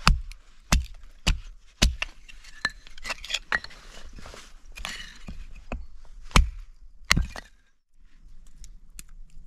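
Hatchet chopping firewood on a chopping block: four sharp strikes about half a second apart, then split pieces of wood clattering and knocking together, then two more sharp knocks. Near the end the sound drops to light clicks of a knife working a stick of kindling.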